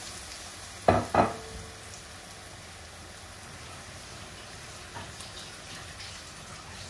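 Battered fish shallow-frying in sunflower oil in a frying pan: a steady sizzle. About a second in, two sharp knocks, the second ringing briefly.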